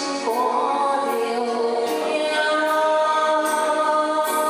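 Woman singing a Taiwanese-language ballad into a microphone over a karaoke backing track, with held notes and a steady beat a little over once a second.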